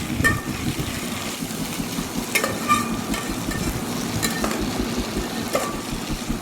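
Onions and ginger-garlic paste frying in oil with a steady sizzle while being stirred in the pan, with a few sharp, ringing clicks of the stirring utensil against the pan.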